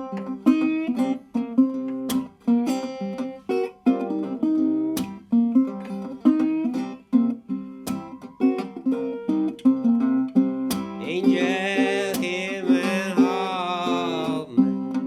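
National Resophonic tricone resonator guitar played bottleneck-style in an acoustic blues intro: a run of plucked notes, then a held note that wavers with slide vibrato for a few seconds near the end.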